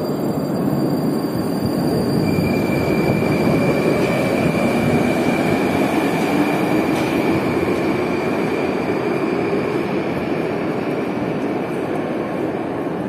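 Moscow metro train pulling out of the station, with a steady rumble of wheels and motors. A steady high squeal joins in about two seconds in and holds until near the end, as the sound slowly fades into the tunnel.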